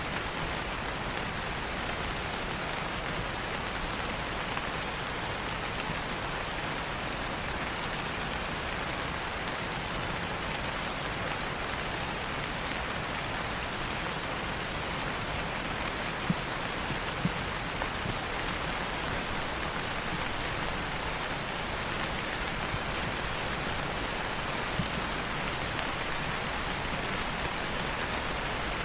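Steady rain falling on leaves, an even hiss with occasional heavier drops.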